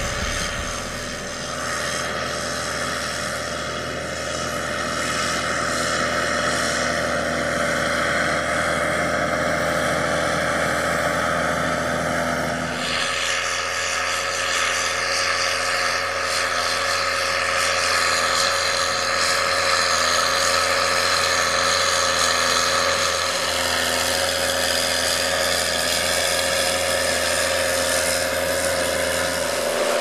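Case IH Puma 225 CVX tractor's six-cylinder diesel running steadily under load while it pulls a six-furrow plough on rubber tracks. The sound changes abruptly about 13 seconds in.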